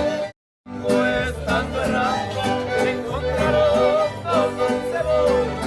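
Norteño band playing an instrumental break between sung verses: a quick melodic lead over a steady bass line. The music cuts out completely for about a third of a second just under half a second in, then resumes.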